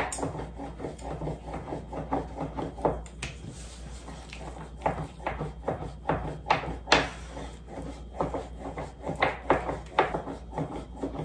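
Irregular light clicks, taps and rubbing of dumpling making: wooden chopsticks knocking and scraping filling from a stainless steel bowl as wrappers are filled and folded by hand, over a low steady hum.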